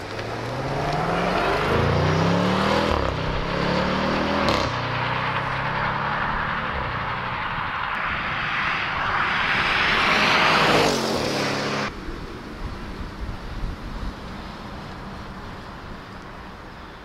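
Audi RS7's 4.0-litre twin-turbo V8 accelerating hard, its pitch climbing and dropping back at three quick upshifts, then sweeping past with a falling pitch about eleven seconds in. Around twelve seconds the sound cuts to a fainter car running steadily.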